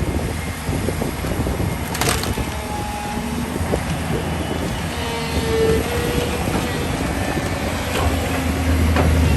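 Excavator diesel engine running steadily under load, with a few sharp knocks and a brief squeal about halfway through.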